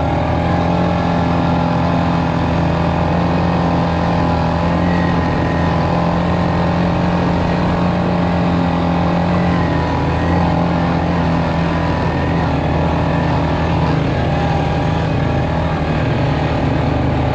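Quad ATV engine running steadily at trail-riding speed, its drone holding a fairly even pitch with only slight rises and dips.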